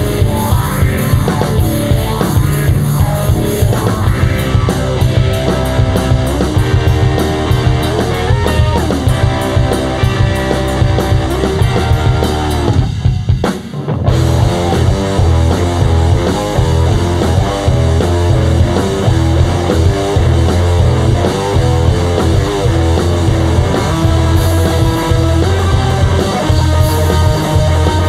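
Rock band playing live, electric guitar over a driving drum kit, with a brief break about halfway through before the full band crashes back in.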